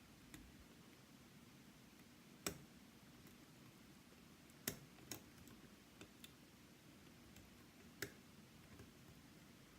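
Scattered small clicks of lock picks and a tension tool working inside a Yale Superior lock, six or seven taps a second or two apart over faint room tone.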